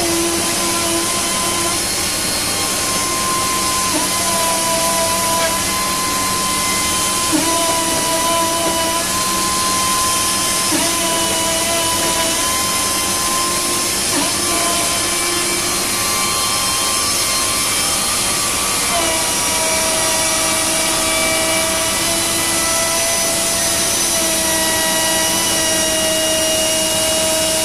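Router spindle on a Panasonic six-axis robot arm running steadily as it trims plastic: a constant high hiss with a held whine whose tones jump to new pitches every few seconds.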